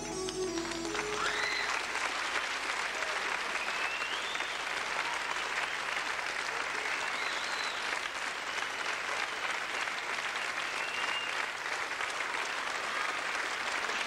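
The last notes of a keyboard-led song die away within the first second. A concert audience then applauds steadily, with shrill whistles rising and falling every few seconds.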